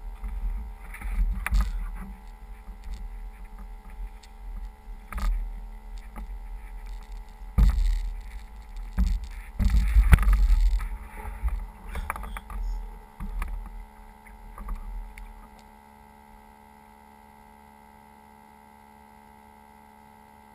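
Rumbling and knocks from a hand handling the model floatplane's fuselage right by the onboard camera, over a steady electrical hum. The handling noise stops about fifteen seconds in, leaving only the hum.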